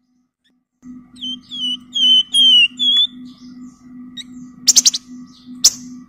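Wergan Jawa songbird singing a quick run of clear, flute-like whistled notes. Several sharp clicks near the end, over a steady low hum.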